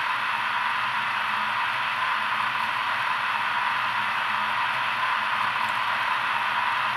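Sound decoder of a PIKO H0 model of a PKP EU07 electric locomotive, standing still and playing a steady hissing rush with a faint, gently pulsing low hum underneath.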